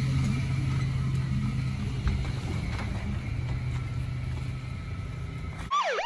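Steady low rumble and hum of a motor vehicle's engine, slowly fading. Just before the end it cuts out and several overlapping siren wails begin.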